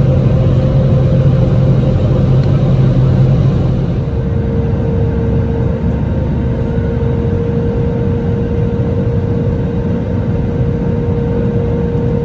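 Jet airliner cabin noise at a window seat: a steady roar of engines and airflow with a steady hum and tone. About four seconds in the sound shifts, the low hum dropping away and the tone settling slightly lower, then it runs on steadily.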